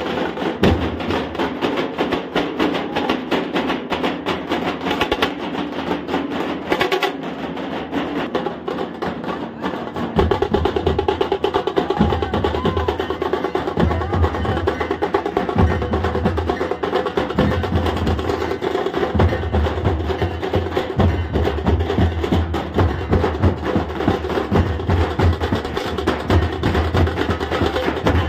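Nashik dhol ensemble beating large barrel drums with sticks in a fast, dense rhythm; about ten seconds in it gets louder, with heavier bass strokes.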